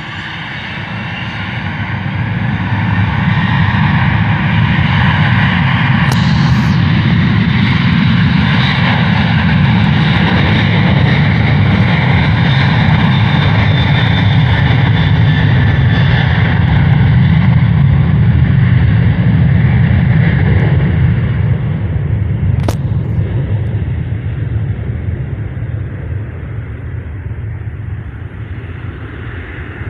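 Airliner engines passing the airfield: a deep rumble with a steady whine on top swells over the first few seconds, holds loud for most of the stretch, then fades away. Two short clicks, about six seconds in and again past twenty seconds.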